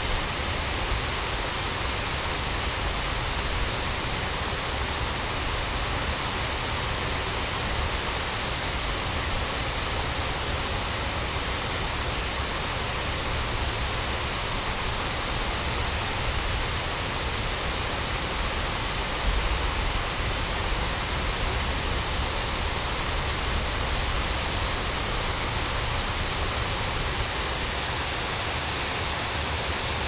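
Steady rushing of a stream's flowing water, an even hiss with a low rumble underneath.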